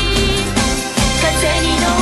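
Background music with a steady beat. The low end drops out for a moment just before a second in, then comes back.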